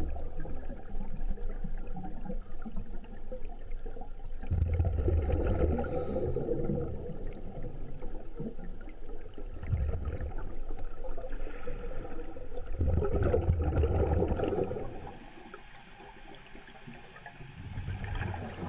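Underwater water noise picked up by the camera: a low rumbling, gurgling sound that swells loud every few seconds and eases between.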